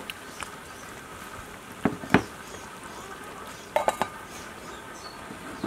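Metal ladle stirring in a stainless steel pot of broth, clinking against the pot twice about two seconds in and again in a quick ringing cluster near four seconds.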